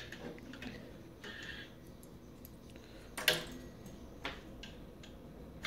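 A few light clicks and taps as gauge needles are handled and pressed onto the stepper motor shafts of a bare instrument cluster circuit board. The loudest tap comes about three seconds in, with a short ring, and a smaller click follows a second later.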